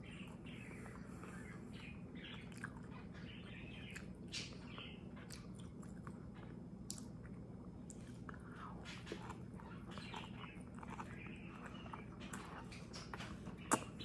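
A person chewing and biting a soft protein wrap filled with asparagus, bologna and cheese, close to the microphone: wet mouth smacks and small clicks throughout, over a low steady hum, with one sharper click near the end.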